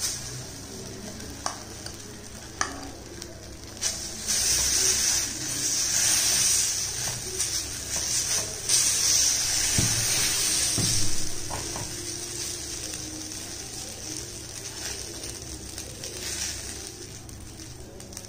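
Moringa-leaf dosa batter sizzling on a hot dosa tawa while a ladle spreads it out in circles, with a few light clicks of the ladle. The sizzle swells in the middle and eases off toward the end.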